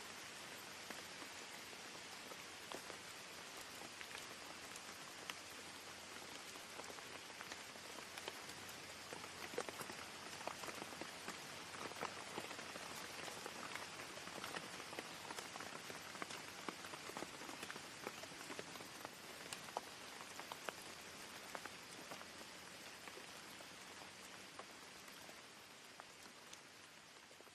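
Rain falling steadily, with scattered individual drops pattering, played as a faint rain-sound ambience; it fades slightly near the end.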